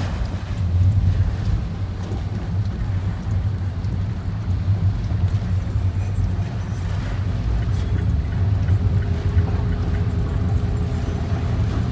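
Typhoon wind raging, a heavy, continuous low rumble that swells and eases in gusts.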